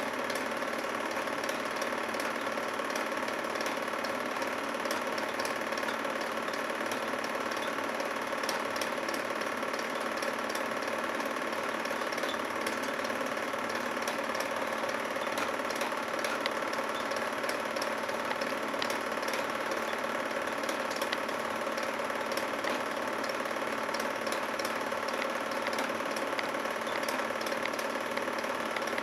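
Film projector running: a steady mechanical whir with light ticking from the film transport.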